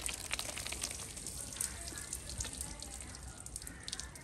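Boiled, drained rice tipped from a metal pot onto a cloth, falling with a soft patter of many small clicks and drips.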